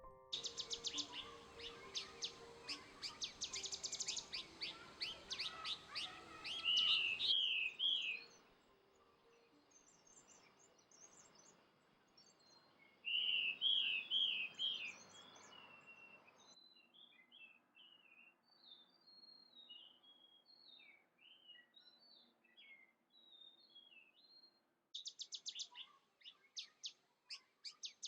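Wild birds calling in a run of short clips. First comes a fast series of high chirps ending in a few loud slurred whistles, then another short burst of loud slurred whistles, then scattered thin high notes, and fast chirping again near the end.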